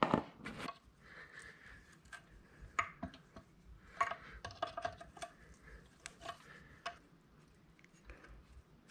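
Hand wrench clinking on the front bearing retainer bolts of an NP435 transmission as they are undone: light, scattered metal clicks and taps.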